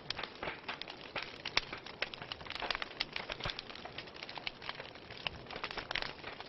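Wood fire crackling in a fireplace: a dense, irregular run of sharp pops and snaps over a steady hiss.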